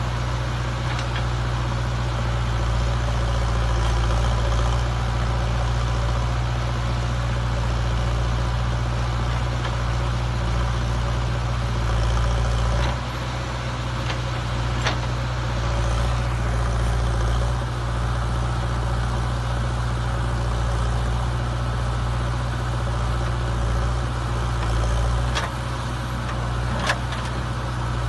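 JCB backhoe loader's diesel engine running steadily while the backhoe arm digs, with a few sharp knocks, one about halfway and two near the end.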